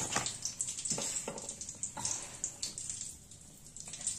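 Hot oil in an iron kadhai sizzling and crackling softly after salt and turmeric have been added, with scattered pops that thin out.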